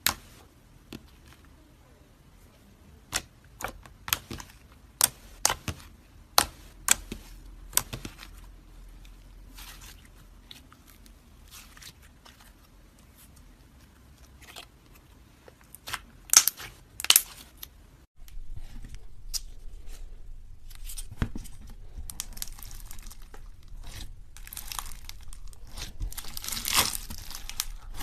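Slime being played with by hand: sharp separate pops and clicks at first, then from about two-thirds of the way through a continuous, busy crackling and crinkling.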